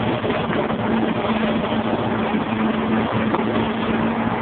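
Motorboat engine running at a steady pitch over a constant rush of wind and water.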